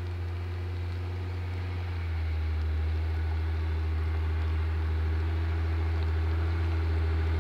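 Jeep Wrangler engine running steadily at low speed while towing a snowboarder through snow, a low hum that grows slowly louder as the Jeep comes closer.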